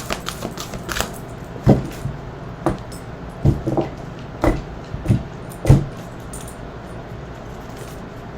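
Tarot deck being shuffled and handled: a series of separate sharp knocks and slaps, about eight of them over the first six seconds.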